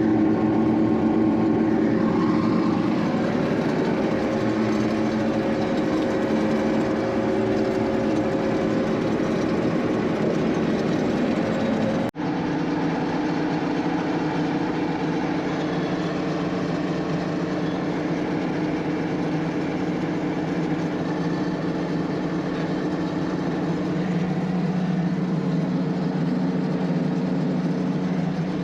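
A combine harvester's engine runs steadily with the hum of its machinery while cutting soybeans. The sound breaks off briefly about twelve seconds in, then carries on.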